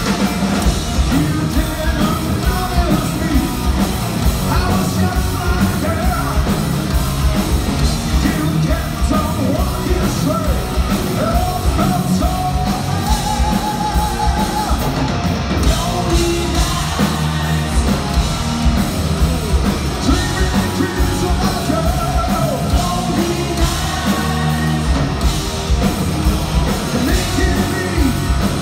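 Heavy metal band playing live: electric guitars, bass and a driving drum beat under a singer's vocals.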